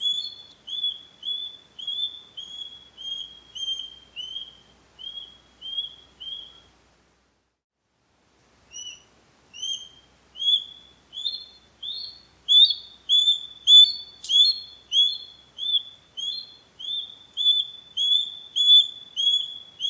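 Osprey giving a series of short, high whistled call notes, about two to three a second, in two runs broken by a pause of about two seconds a third of the way through; the second run starts slightly lower and climbs back up in pitch.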